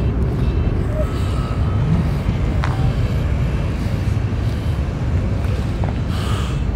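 Steady low rumble of outdoor background noise across a parking lot, with distant vehicle sounds.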